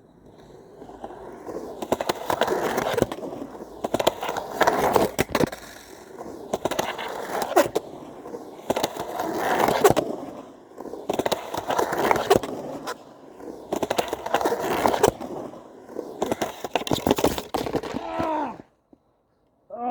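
Skateboard riding back and forth on a ramp: the wheel rumble swells and fades about every two and a half seconds, with sharp clacks and scrapes of the trucks on the coping at each turn. It cuts off suddenly near the end.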